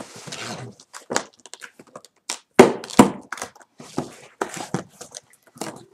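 Cardboard shipping boxes being handled and moved: a series of knocks and thumps with cardboard scraping and crinkling, the two loudest thumps about two and a half and three seconds in.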